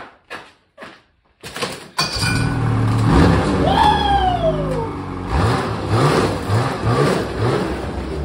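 Ski-Doo snowmobile engine starting: a few short knocks, then the engine catches about two seconds in and runs, revved in several quick blips.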